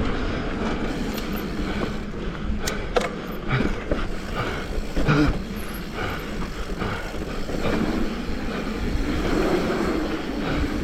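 Mountain bike rolling fast over a rough dirt trail, heard from a GoPro on the bike or rider: a steady rumble of tyres and wind buffeting the microphone, with the bike rattling and knocking sharply over bumps, hardest about three and five seconds in.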